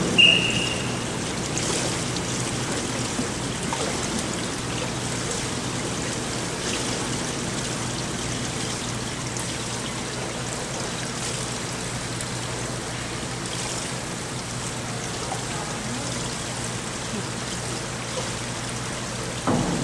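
Steady rushing-water hiss from an indoor diving pool, its surface churned under the springboards, echoing through the pool hall. A brief high whistle sounds just after the start.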